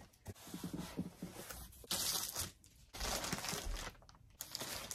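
Cardboard shipping boxes and a paper mailer being handled and stacked, in several rustling, scraping bursts of paper and cardboard.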